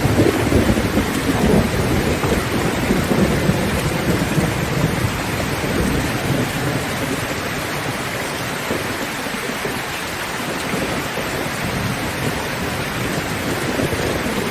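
Steady heavy rain drumming on a zinc sheet-metal roof, with a low rolling rumble of thunder over the first few seconds that dies away about halfway through.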